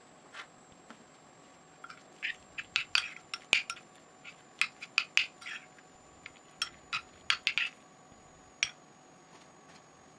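Cutlery and dishes clinking: a quick run of short, sharp clinks and taps from about two seconds in until near the end, then one last clink.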